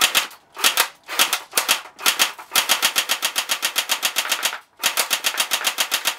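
Well D-90F battery-powered airsoft gun, a P90 replica, firing on full auto: a rapid, even clatter of shots. It comes in several short bursts, then a long burst of about two seconds, a brief pause, and another long burst.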